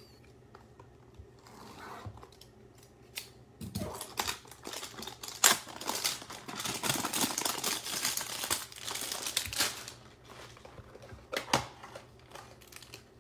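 A cardboard hanger box of trading cards being opened by hand, with tearing and crinkling as the box flap and packing give way. The tearing and crinkling run from about four seconds in to about ten seconds, followed by a couple of sharp clicks.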